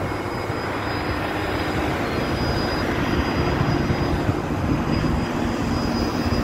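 Kato 100-ton truck crane's diesel engine running steadily with a low drone, a faint high whine over it.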